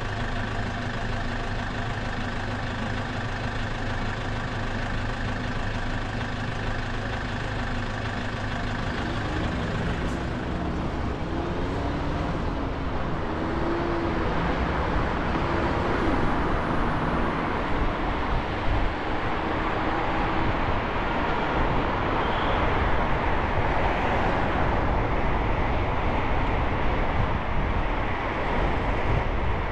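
Road traffic from a car driving in the city: a steady engine hum with even tones for about the first nine seconds, then a rush of road and tyre noise that grows louder.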